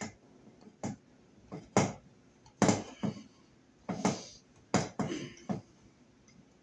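Copper wires and a plastic wire nut being twisted together by hand in a wall electrical box: a run of short, irregular scrapes and rustles.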